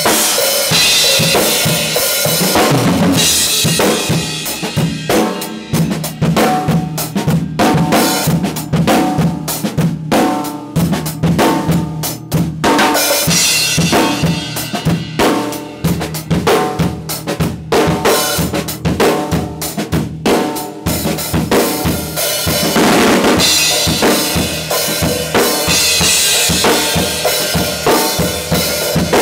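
Acoustic drum kit played with sticks: snare, toms and bass drum under crash cymbals. Cymbals wash over the beat near the start and again in the last third, with crisper, sparser drum strokes in between.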